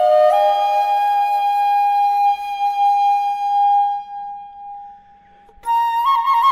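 Background music played on a solo flute: one long held note that slowly fades away, then a new phrase with quick trills begins about a second before the end.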